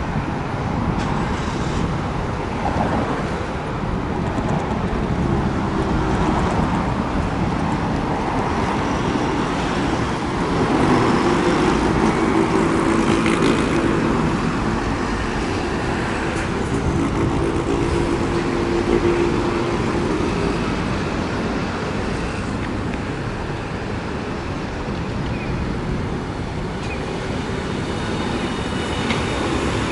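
City street traffic noise: cars and a city bus passing. A steady engine drone stands out for about ten seconds in the middle.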